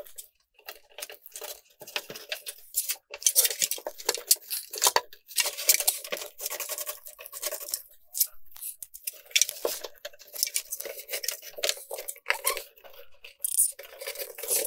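14-2 Romex (plastic-sheathed electrical cable) being pulled and fed through holes in drywall and wood framing: irregular rustling and scraping of the sheathing sliding and rubbing, in quick uneven strokes.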